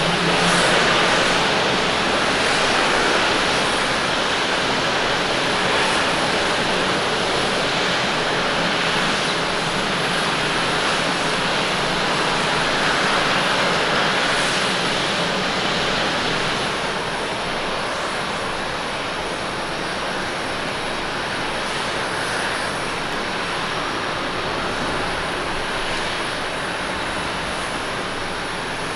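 Jet airliner engines of an Airbus A320-200 on a wet runway: a steady jet hiss and rumble, loudest at first, that eases off about two-thirds of the way through.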